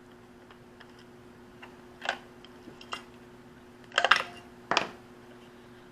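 Plastic clicks and knocks from a handheld digital multimeter's case being handled and turned over while it is being taken apart: a few separate clicks, with the loudest quick rattle of clicks about four seconds in.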